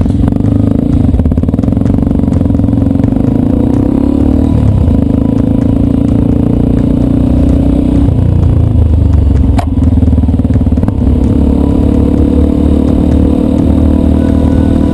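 Yamaha Ténéré 250's single-cylinder engine running loud through an aftermarket Roncar Coyote exhaust, its pitch falling and rising a few times. A single sharp click about ten seconds in.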